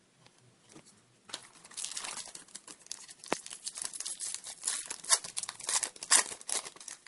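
Crinkling and tearing of a foil trading-card pack wrapper, a dense crackle that begins about a second in and keeps going.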